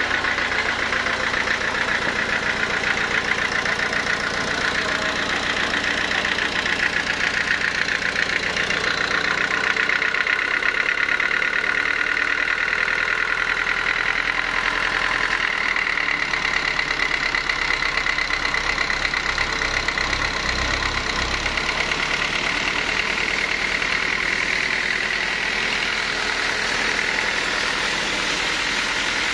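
Sawmill machinery running steadily, a motor-driven saw with a constant high-pitched whine over a mechanical rattle. The low hum underneath drops away about ten seconds in.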